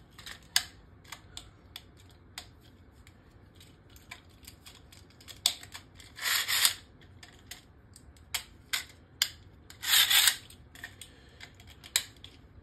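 Light plastic clicks and short rubs from a Beyblade X top, Dran Sword 3-60 Flat, being taken apart and put back together by hand with its ratchet turned 180 degrees. The clicks are scattered, with two brief scraping rubs about six and ten seconds in.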